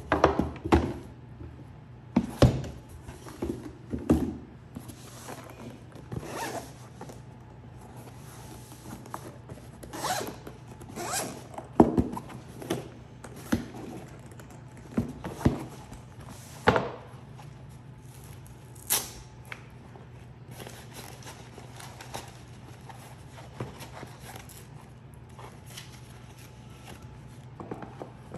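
Handling of a Theragun Elite's zippered carrying case and its cardboard packaging: irregular knocks, bumps and rustles as the case is lifted out of the box and set down, and the case's zipper pulled open. The handling is busiest in the first half and quieter later.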